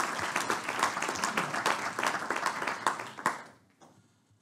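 Audience applause, many hands clapping, which dies away about three and a half seconds in with a few last claps.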